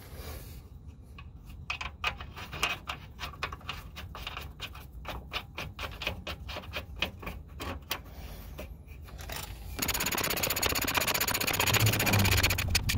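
Light metallic clicks, a few a second, as a nut is spun by hand onto the new track bar's mounting bolt. About ten seconds in, a ratchet wrench starts clicking fast and steadily as the nut is run down.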